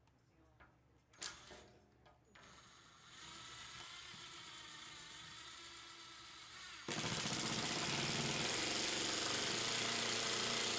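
Cordless impact driver driving a screw through a door floor guide into the floor. After a few light clicks as the screw is set, the driver spins steadily from about two seconds in. About seven seconds in it turns much louder, with a rapid rattle as the impacts engage and the screw seats and tightens.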